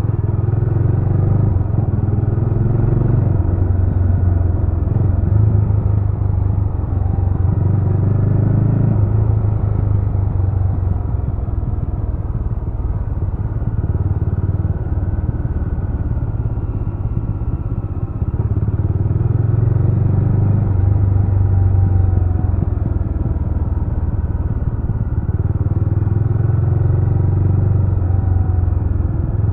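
A Jawa RetroTrail 650's 650 cc single-cylinder engine is running under way on the road as the rider works the throttle. The engine note swells and eases, going lighter a little after a third of the way in and pulling harder again about two-thirds through.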